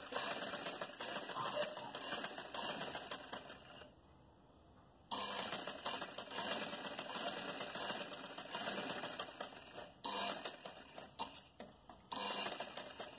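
Old black sewing machine stitching a seam through cotton fabric, running in stretches of a few seconds. It stops for about a second some four seconds in, and briefly twice more near the end.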